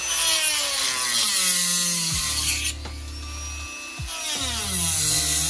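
Dremel rotary tool cutting the tabs out of a plastic factory speaker bracket. Its high whine drops in pitch twice as the bit bites into the plastic, holding lower and steadier in between.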